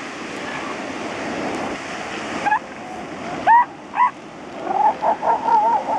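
Steady wash of surf, with short rising yelps from young northern elephant seals starting about halfway through, the loudest about three and a half seconds in, then a quick string of wavering calls near the end.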